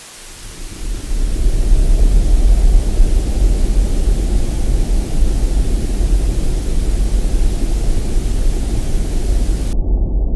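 Horror sound effect: a loud, steady noise with a deep rumble underneath, fading in over the first second or two. Near the end the hiss above is cut off, leaving only the low rumble.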